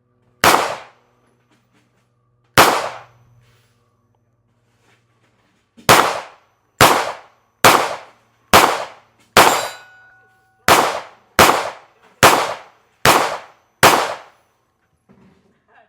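A string of twelve gunshots from a firearm at a shooting range: two shots about two seconds apart, then, after a short pause, ten more fired steadily at about one every 0.8 seconds, each with a short echoing tail.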